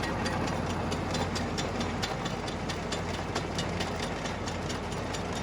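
Tractor engine running at a steady speed, with a light, regular clicking through the sound.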